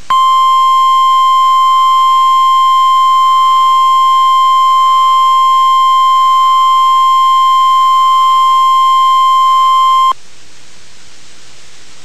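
NOAA Weather Radio 1050 Hz warning alarm tone, sent as a weekly test: one loud, steady high tone lasting about ten seconds that cuts off sharply, over radio static hiss. This tone is the signal that automatically switches on weather alert receivers.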